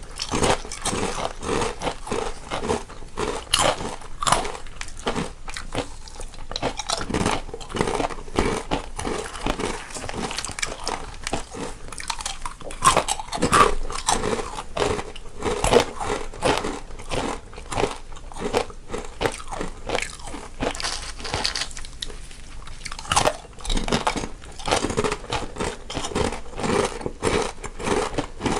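Two people biting and chewing crunchy snacks, a dense run of crisp crunches and crackles with no pause.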